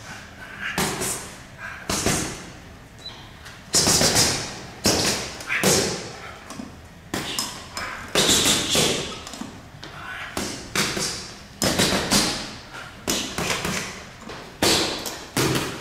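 Gloved punches landing on hanging Lonsdale punching bags: a run of sharp thuds at uneven spacing, about one a second, some coming in quick pairs, each with a short echo.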